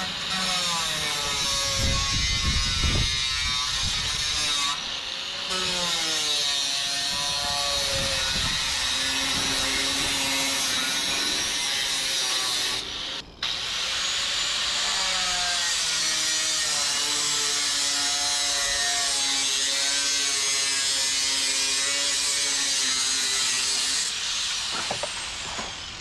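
Cordless drill driving screws into metal roofing tin, its motor whine rising and falling in pitch with each screw, in repeated runs of a second or two. A gust of wind hits the microphone about two seconds in.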